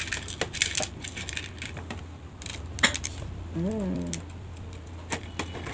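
Small coloured seashell pieces clicking against each other and against a plastic plate as they are picked up and pressed into place, a scattered series of sharp ticks. A short voiced hum a little past halfway.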